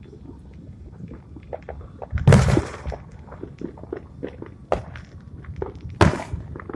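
Two fireworks shells bursting, each a loud boom with a short tail, the first about two seconds in and the second near the end. Many small pops and clicks are scattered in between.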